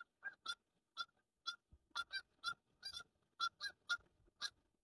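Two geese honking in a fast, faint series of short calls, about three a second: alarm honking from geese being chased by a yellow Labrador.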